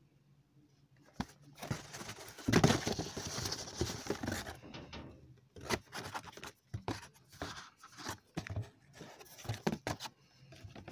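Cardboard packaging being handled as a boxed action figure is lifted out of a cardboard shipping box: a loud stretch of scraping and rustling about two seconds in, then a run of light knocks and scrapes.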